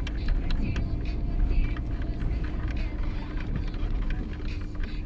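Car driving along a road: a steady low rumble with a faint constant hum and scattered small knocks and rattles.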